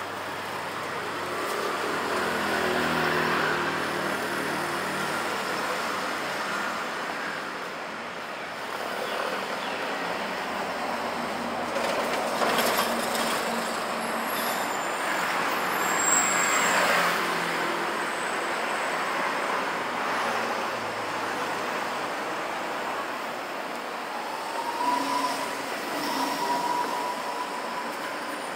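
Street traffic: motor scooters and cars passing, a few vehicles swelling up and fading away, over a steady hum of the town. A thin steady whine comes in near the end.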